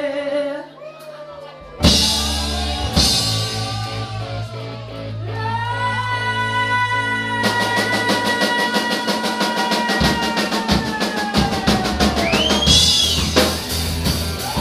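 Live rock band playing: electric guitar and drum kit. About two seconds in, a loud hit opens a long held note, and from about halfway the drums play a fast, steady beat.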